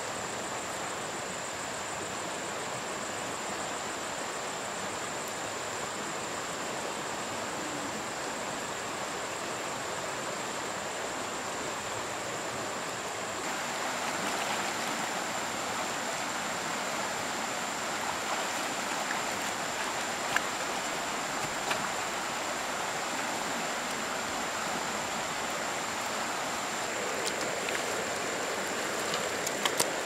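River water running steadily, with a constant high-pitched whine over it. From about halfway, wet mud being dug with a hoe and worked at the water's edge, with a few sharp thuds and splashes.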